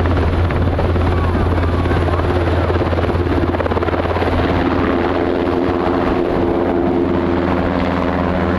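NH90 helicopter running at lift-off power as it rises off the grass into a low hover, a steady, loud rotor beat. From about halfway a steady whine of several tones joins it.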